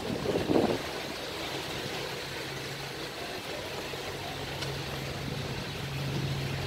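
An engine idling with a steady low hum, a little louder near the end.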